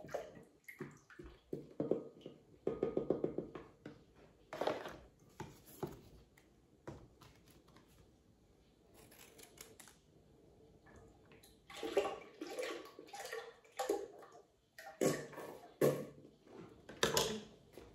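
Liquid whipping cream poured from cartons into a glass stand-mixer bowl in several short pours, with the snip of scissors cutting open cream cartons and the cartons handled in between.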